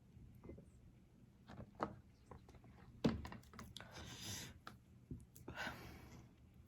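Eating and food-handling sounds: scattered soft clicks, a sharp thunk about three seconds in, and two brief rustling noises.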